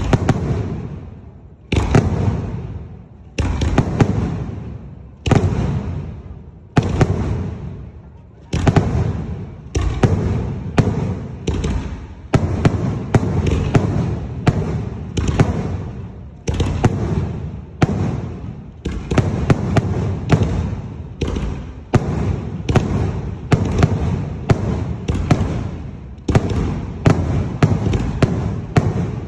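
Mortar-fired salute shells going off in a barrage: sharp bangs one after another, each echoing away. They come about every two seconds at first, then quicken to one or two a second from about nine seconds in.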